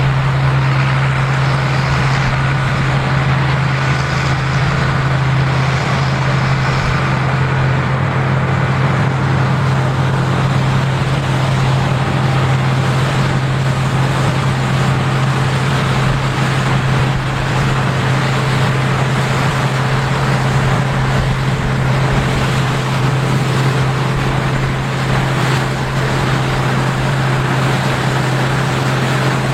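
Case IH Axial-Flow combine harvesting corn, its engine and machinery running with a steady, unchanging low drone.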